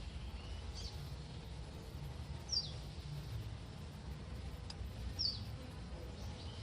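A small bird gives three short, high chirps, each sliding down in pitch, spaced a couple of seconds apart. A steady low rumble of background noise runs underneath.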